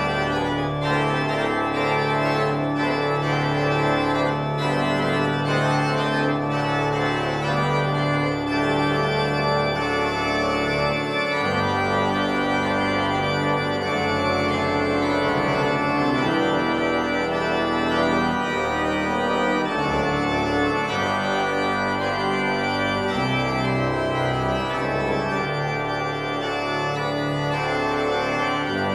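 Church pipe organ playing slow music of long held chords, the bass notes changing every several seconds.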